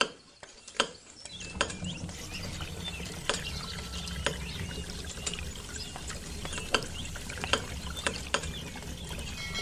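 Lever of a miniature handmade hand pump clicking as it is worked up and down, roughly one click a second, with a thin stream of water trickling from its spout into a tiny metal bucket.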